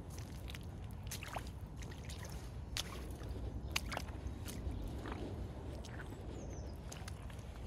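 Reebok Classic trainers squelching and sloshing through wet mud and a muddy puddle, with several separate wet squelches, one per step.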